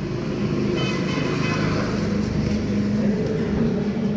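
Street traffic noise: a steady engine hum from road vehicles, growing a little louder near the end, with faint voices in the background.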